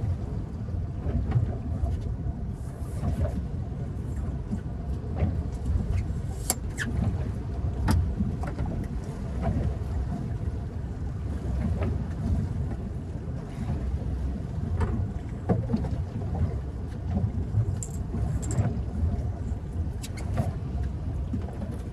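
Gusting low rumble of wind on a phone microphone aboard a small boat at sea, with scattered light clicks and knocks through it.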